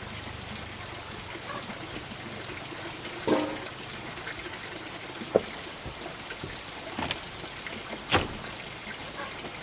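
Steady running water, with four sharp knocks or clatters spread through it, the one about halfway through the loudest.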